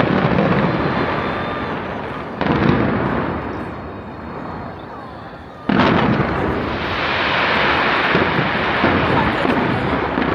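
Large fireworks display going off: two sudden loud bursts, one about two and a half seconds in and a bigger one just before the middle, each followed by a long crackling wash that slowly fades, with crowd voices under it.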